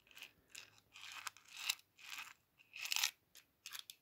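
Loose ear studs rattling and sliding inside a small nail-file case as it is tilted and shaken, a soft rain-stick-like patter in about nine short, uneven bursts.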